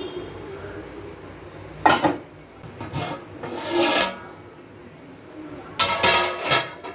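Metal cookware clanking and scraping: a sharp clank about two seconds in, a scraping stretch, then a louder ringing clatter near the end, as a heavy biryani pot is set onto a dosa tawa.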